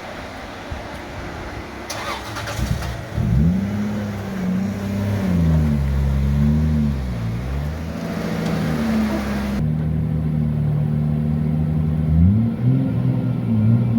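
Big-turbo 2JZ straight-six engine in a Nissan Cima revving: its pitch climbs, holds and drops several times over. A short patch of clicking comes about two seconds in.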